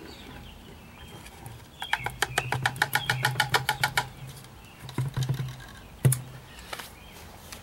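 Clear plastic tub shaken and tapped against the mouth of a plastic pump sprayer to empty powdery crystals into it: a fast run of light plastic clicks, about ten a second, for some two seconds, then a few scattered knocks, the sharpest about six seconds in.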